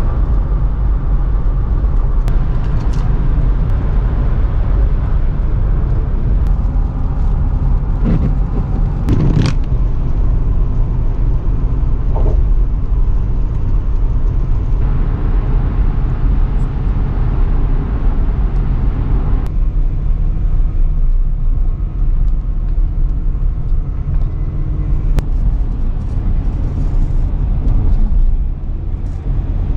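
Car driving on the road: steady engine and road rumble, with a brief louder noise about nine seconds in.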